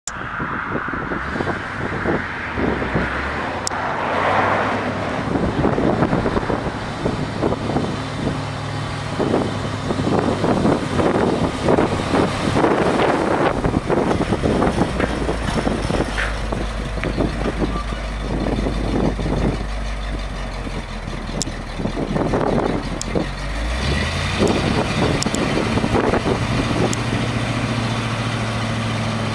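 1979 International S1800 truck's MV404 gas V8 running as the truck drives up and stops, then idling. About 24 s in the engine note steps up and holds while the hydraulic hoist tips the grain box up.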